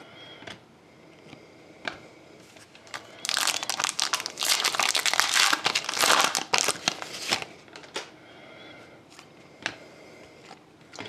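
A foil trading-card pack wrapper being torn open and crumpled by hand: a loud crinkling that starts about three seconds in and stops about four seconds later.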